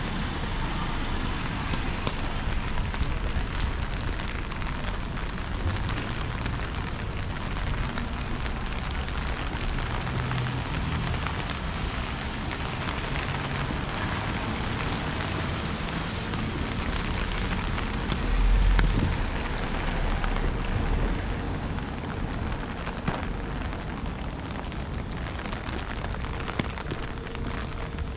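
Steady rain falling, an even hiss with scattered drop clicks, over a low rumble of wind on the microphone; a short, stronger low rumble about 18 seconds in.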